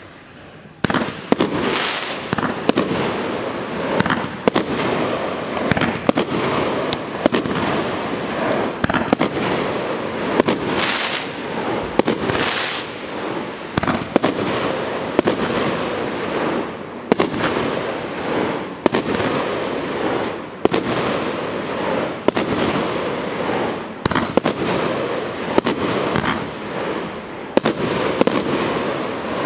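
Consumer fireworks cake, a 19-shot 1.2-inch battery, firing shot after shot. It starts about a second in, and a quick run of sharp bangs from launches and shell bursts sits over a continuous rushing noise.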